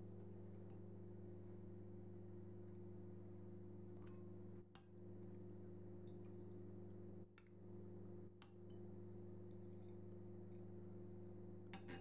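A metal spoon clinking faintly against glass bowls a few times as fruit salad is spooned from one glass bowl into another, over a steady low hum.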